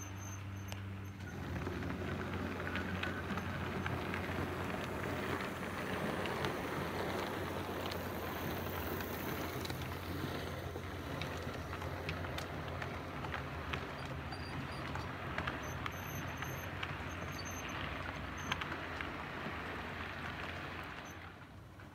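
Model railway train rolling past close by: a steady rattling rumble of wheels on the track, with scattered clicks and a low motor hum. It rises about a second and a half in and fades near the end.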